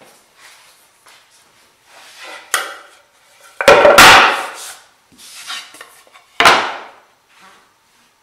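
Plywood pieces handled and set down on a wooden workbench: a loud wooden knock and clatter about three and a half seconds in, a second sharp knock about six and a half seconds in, and lighter rubbing and tapping between.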